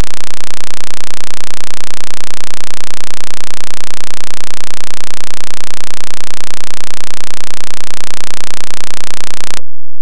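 Constant, extremely loud full-scale noise, a harsh hiss across the whole range with a steady buzz underneath, from a faulty audio routing while computer audio is being shared with the microphone. It cuts off suddenly near the end.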